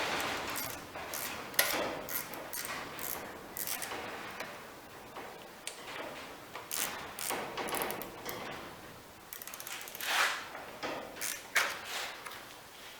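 Metal hand-tool clicks and knocks as the ignition coil's mounting bolts on a lawnmower's Briggs & Stratton engine are tightened, with a quick run of fine clicks about nine seconds in.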